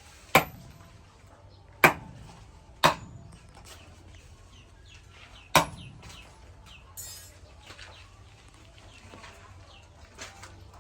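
Four sharp strikes, each with a brief high ring, spaced irregularly over the first six seconds. Chickens cluck faintly in the background.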